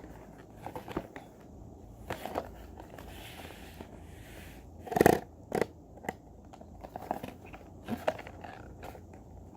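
A boxed toy and its cardboard and plastic packaging being handled and opened: scattered clicks and crinkles, a soft rustle, and two loud knocks about halfway through.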